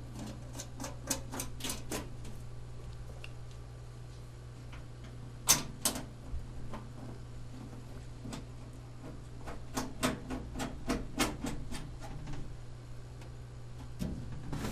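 Scattered sharp clicks and taps in short quick runs, two louder ones about five and a half seconds in, over a steady low hum from the running computer.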